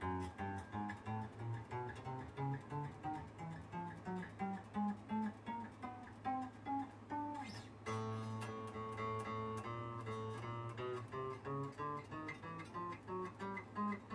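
Greco SA-64-60 semi-hollow guitar played in quick single-note runs that step up and down, with a held chord about eight seconds in. It is the final play-test after a refret with jumbo frets, checking that no notes choke out.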